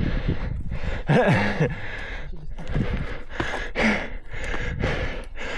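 Heavy, quick breathing from exertion while power hiking, about two breaths a second, with a short voiced grunt about a second in. Wind rumbles on the microphone throughout.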